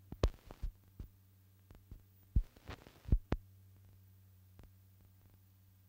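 A steady low hum with a dozen or so sharp clicks and pops scattered over it, most of them in the first three and a half seconds: the surface noise of an old film transfer.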